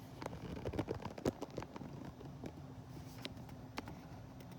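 Light clicks and taps of hard plastic doll-playset pieces being handled: a quick cluster in the first second and a half, then a few single clicks, over a faint steady hum.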